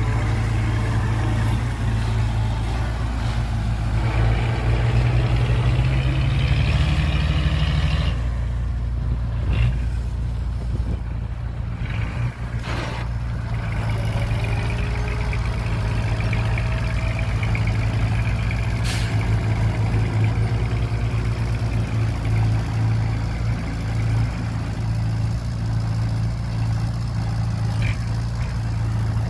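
Heavy diesel engines of earthmoving machinery running steadily with a deep drone, revving up a little about seven seconds in. A few short, sharp sounds cut through partway along.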